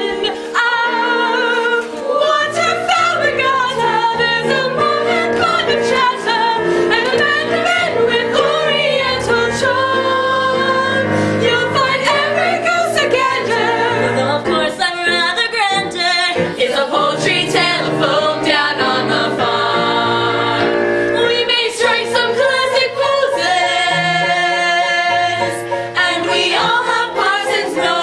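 Musical theatre cast singing together as an ensemble over instrumental accompaniment, with several long held chords near the end.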